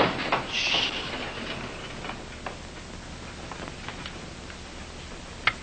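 Wooden boat frame being worked with hand tools: a short scrape about half a second in, then scattered light knocks and taps, the clearest near the end. A steady hum and hiss from the old soundtrack lies underneath.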